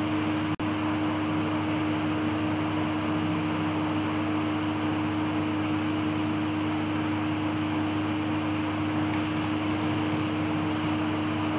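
Steady hum and hiss of a computer fan, with a few quick clicks near the end. The sound cuts out for an instant about half a second in.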